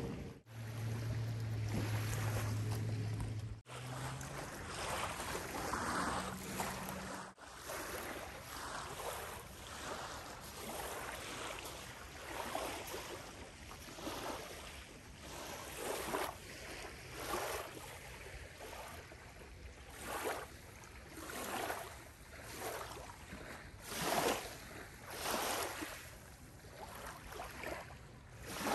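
Small waves lapping on a gravelly lake shore, with a soft splash about every second or so, over wind on the microphone. A low steady hum is under the first few seconds.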